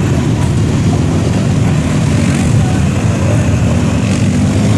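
A large engine running steadily under way, loud and close, with a low hum and a hiss of wind or spray over it.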